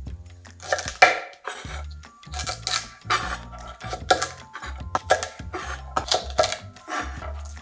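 Chef's knife cutting through broccolini stems and knocking on a wooden cutting board: a series of irregular chops, roughly one or two a second.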